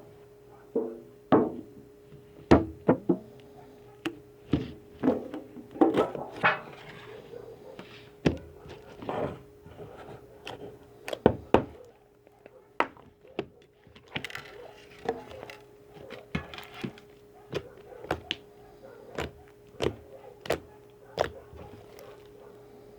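Homemade slime being squeezed, poked and stretched by hand, making irregular sharp clicks and wet pops from trapped air, over a faint steady hum.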